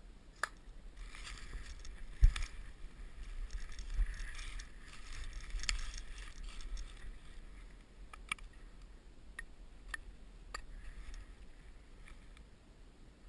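Handling noise from a scoped Remington 700 rifle and tripod shooting sticks being settled in dry, frosty grass: scattered light clicks and knocks with soft rustling, and low bumps on the microphone, the sharpest knock about two seconds in.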